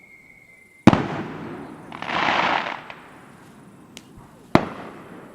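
Small fireworks going off: a sharp bang with crackling, a loud hissing spray about two seconds in, then a second sharp bang near the end.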